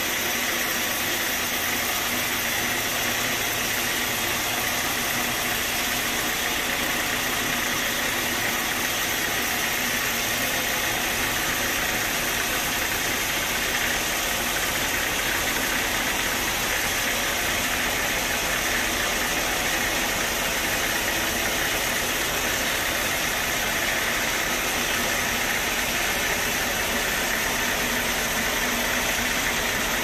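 Band sawmill running, a steady mechanical noise that holds the same pitch and level throughout.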